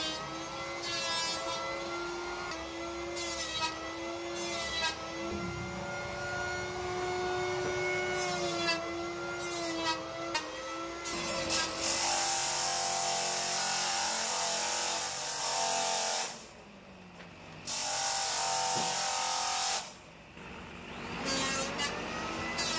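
Table saw cutting wooden boards: a long loud cut starting about halfway through, a short break, a second cut, another break, and a third cut starting near the end. Before the cutting there is a steady hum.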